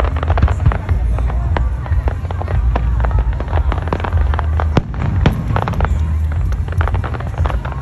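Aerial fireworks display exploding: a dense, continuous run of sharp pops and crackles over a steady low rumble.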